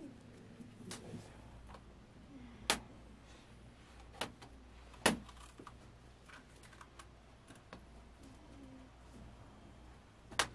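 Irregular light clicks and knocks, a few sharper ones, the loudest about five seconds in and just before the end.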